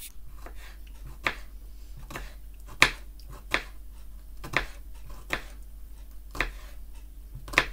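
Knife chopping on a cutting board: sharp, uneven strokes roughly once a second.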